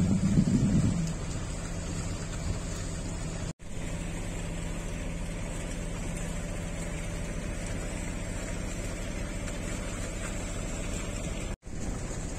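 Sailboat's inboard engine running at a steady speed while motoring, a constant hum over wind and water noise. The sound swells briefly at the start and cuts out for an instant twice.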